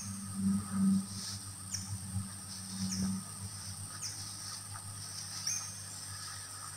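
Steady high-pitched insect drone, with a short falling bird chirp repeating every second or two.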